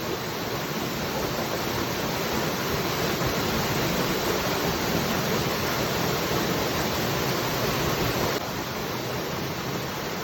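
Waterfall: a steady rush of falling water, dropping a little in level about eight seconds in.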